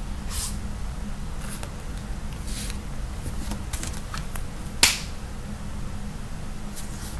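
Scattered light clicks and taps from handling small objects, the sharpest about five seconds in, over a steady low electrical hum.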